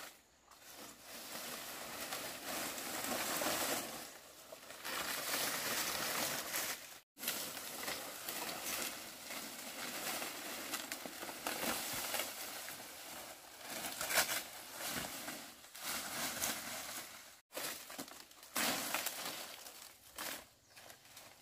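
Dry fan-palm fronds crackling and rustling as they are handled and dragged, in long stretches broken by two abrupt breaks.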